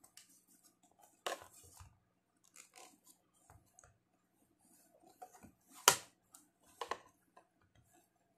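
Chrome-finished plastic knee tank pads handled and set down on a hard surface: light rustling and clicking with three sharp knocks, the loudest about six seconds in.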